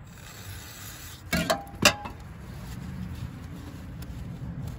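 Aerosol spray can hissing briefly, then two metallic knocks with a short ring about a second and a half in, the second sharp and the loudest, as the metal can is set down. Then soft rubbing of a paper towel wiping out the crankcase seal bore.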